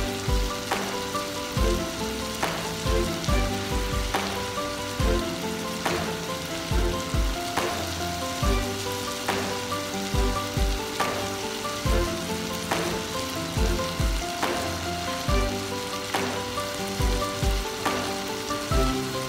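Background music with a steady beat, over a steady sizzle from diced carrots, tomatoes and peas cooking in a pot.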